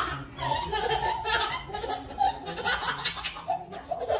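A baby laughing hard in short repeated bursts of giggles.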